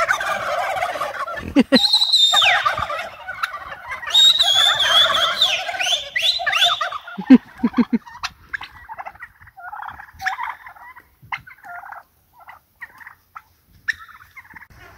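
Common cranes calling in flight: loud rolling, trumpeting calls, several birds overlapping, that thin out after about eight seconds into scattered fainter calls.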